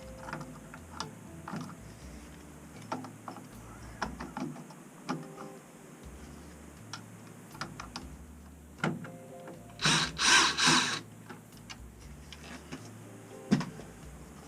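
Scattered clicks and light knocks of hand tools, screws and small parts while a Navien combi boiler is taken apart, with a louder noisy burst in three quick pulses about ten seconds in.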